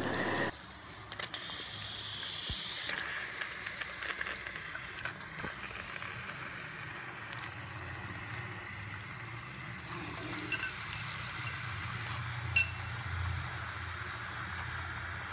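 Marinated raw chicken pieces sliding from a glass bowl into a pan of masala, with a faint sizzle and a few soft knocks. A single ringing clink of the metal ladle about twelve and a half seconds in is the loudest sound.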